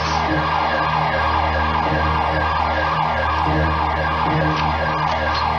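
Electronic home burglar-alarm siren sounding, a fast repeating warble of pitch sweeps, about three or four a second, set off by a break-in on the ground floor.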